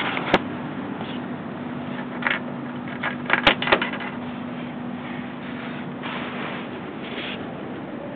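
Fuji Rabbit S301 scooter engine idling steadily, with a handful of short clicks and knocks about halfway through.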